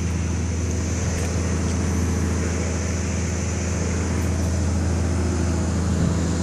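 Large farm tractor's diesel engine running at a steady speed, a constant low drone with no change in pitch.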